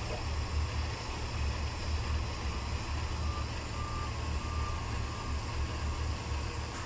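Hand-held hot-air plastic welding gun blowing steadily as it heats a PVC waterstop joint: a constant rushing hiss over a low rumble. A few short, faint beeps of a vehicle reversing alarm sound around the middle.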